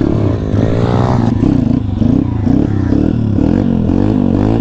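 Kayo pit bike's YX 140cc single-cylinder four-stroke engine running on the move, its note rising and falling over and over with the throttle, with one higher rev about a second in.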